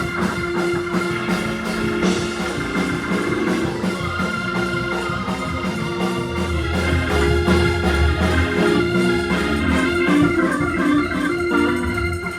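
Church organ playing sustained chords with a bass line, the kind of Hammond-style organ backing played under a Pentecostal sermon's close.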